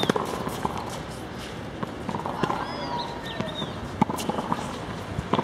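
Red low-compression tennis balls struck with rackets and bouncing on a hard court: a scattering of sharp knocks, the loudest about four seconds in, with player footsteps in between.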